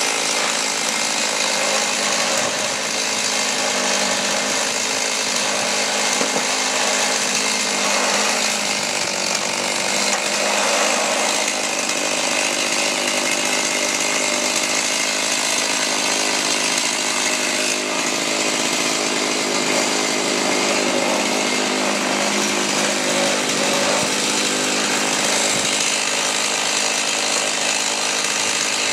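Chainsaw mounted in a homemade chainsaw mill, running steadily at high speed as it rip-cuts a plank from an oak log.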